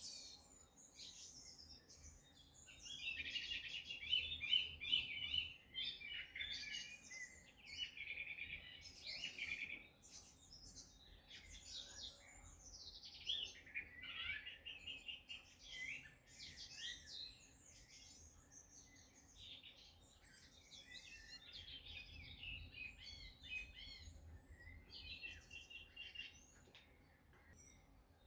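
Small songbirds singing, several overlapping voices in quick chirps and rapid trills with hardly a break.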